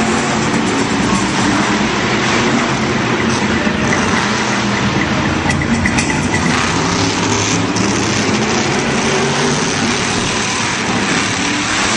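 Monster truck engine running loudly and steadily.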